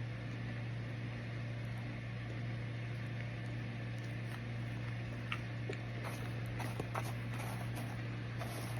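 Microwave oven running with a steady low hum, and a few short clicks and crackles in the second half.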